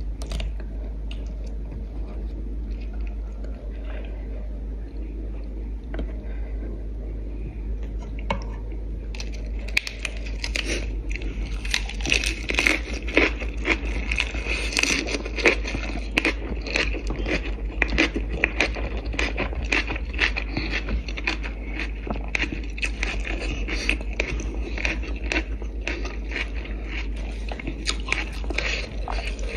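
Close-up crunching and chewing of a crisp lettuce-leaf wrap, the bites crackling densely from about a third of the way in after a quieter start with light spoon and plate clinks. A steady low hum runs underneath.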